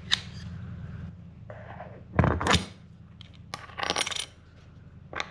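Hard objects being handled and set down on a workbench: a few sharp clicks and knocks, the loudest about two seconds in, with a short clatter near four seconds, as a pressing board is set over a freshly glued guitar-top rosette.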